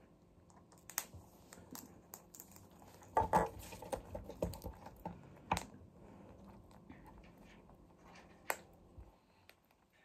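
Scattered light clicks and taps from a green parakeet and its plastic ball and hoop toy on a wooden tabletop, with a quick run of knocks about three seconds in and single sharp clicks a little after the middle and near the end.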